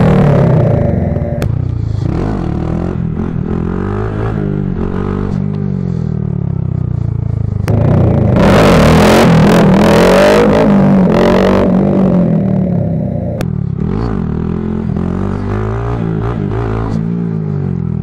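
Honda Grom MSX125's single-cylinder engine through a cheap aftermarket dual-outlet full exhaust, revving up and down as the bike rides past and around; the pitch rises and falls again and again. It is loudest for a few seconds around the middle.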